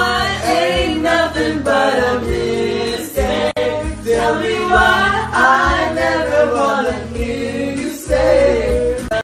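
Music: a song with several voices singing together over a steady accompaniment.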